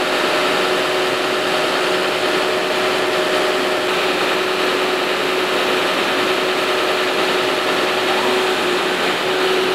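Fire truck's engine idling close by: a steady, even drone with a constant hum.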